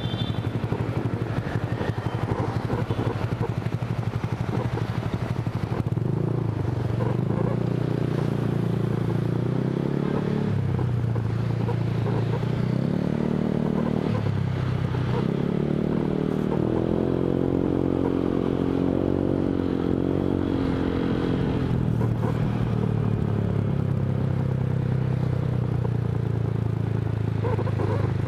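Honda Vario 150 scooter's single-cylinder engine running through an F2Racing CL.LONG aftermarket exhaust while riding in traffic. The engine pitch rises and falls several times as the scooter speeds up and eases off.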